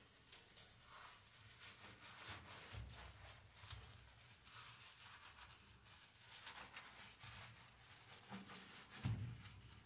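Faint, irregular swishing of a sponge scrubbing a soapy black gas stovetop, with a soft knock about nine seconds in.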